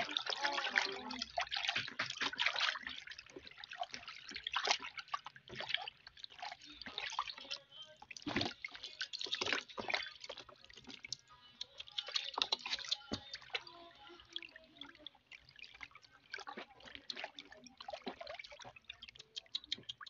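Small irregular water splashes, drips and gurgles from a rod and line being jiggled at an eel hole in paddy-field water (urek-urek), the wet clicks coming unevenly and closely spaced.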